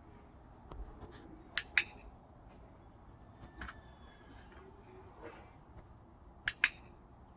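Handheld dog-training clicker clicked twice, about a second and a half in and again near the end, each time a quick double click. Each click marks that a piece of food is coming, charging the clicker for the puppy.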